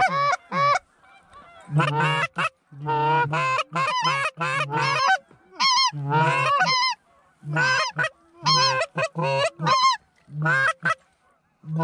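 Geese honking and clucking, loud and close, in quick runs of sharply bending notes broken by short pauses.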